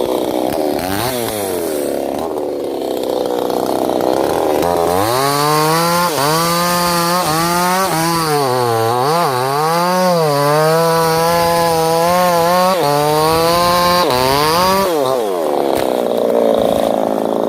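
Proquip two-stroke chainsaw cutting into a sugar palm trunk. It runs at lower speed, revs up about five seconds in and holds full throttle for about ten seconds, its pitch sagging and recovering as the chain bites, then drops back down near the end.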